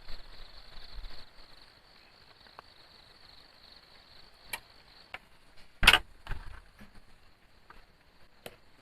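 Insects trilling steadily, with a few sharp knocks and clicks; the loudest knock comes about six seconds in, followed by a softer one.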